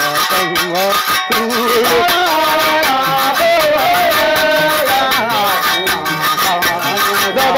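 Music: a wavering lead melody over a steady beat.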